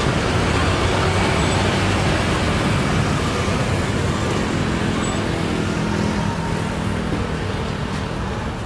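Twin jet engines of a Boeing 737 airliner at takeoff thrust during its takeoff roll: a loud, steady roar that eases slightly near the end.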